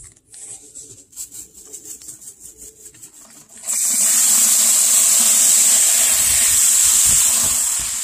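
A garden hose sprays water hard into a plastic bucket of live crawfish, rinsing them, with a loud, steady hiss that starts about four seconds in. Before it there is softer rustling with small ticks.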